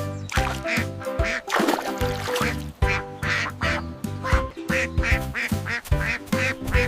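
Music with a steady beat: repeating bass notes and a short melodic figure, with bright, quack-like strokes falling regularly on the rhythm.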